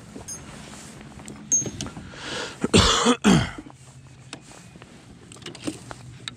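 Light clicks and knocks of fishing rods being handled on a boat's rod deck, with a loud cough about three seconds in.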